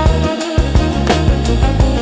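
Soulful house style dance music with a steady beat: drum hits about twice a second over a deep, heavy bass line.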